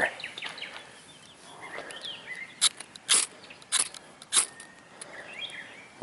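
Four quick scrapes of a Swiss Army knife's saw-blade spine down a small Tortoise Gear Firefly ferro rod, about half a second apart, striking sparks onto a fire disc to light it. Birds chirp faintly.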